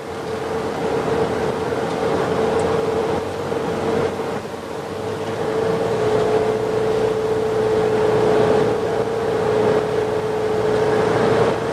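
Car driving at a steady speed: continuous engine and road noise with a constant hum.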